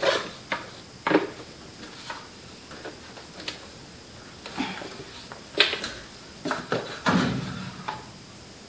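Irregular plastic clicks and knocks, about a dozen, from handling a 25-watt K&H chick brooder heating plate and fitting its adjustable plastic legs.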